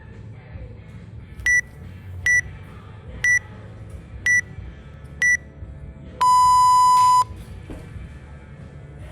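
Workout interval timer counting down: five short high beeps about a second apart, then one longer, lower beep marking the start of the round. Background music plays underneath.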